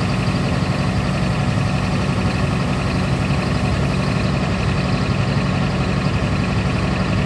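Scania G420 6x4 timber truck's diesel engine idling steadily.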